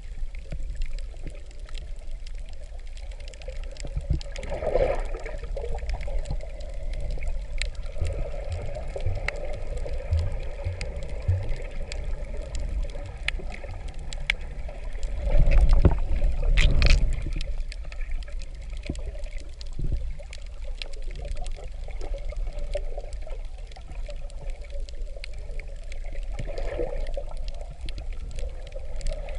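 Underwater sound heard through a waterproof camera housing: a steady, muffled rumble of moving water with scattered sharp clicks and crackles, and a louder surge of water noise about halfway through.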